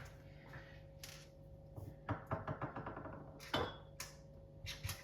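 Small hard parts and hand tools handled at a kitchen mixer tap: a quick run of small clicks about two seconds in, a louder knock a little later and a couple more clicks near the end, over a faint steady hum.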